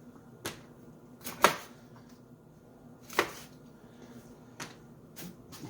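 Kitchen knife chopping through raw chicken wings onto a cutting board: about five separate sharp knocks, the loudest about a second and a half in.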